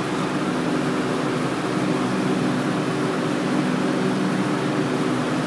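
Daikin packaged air conditioner running: a steady rush of fan air with a low, even hum.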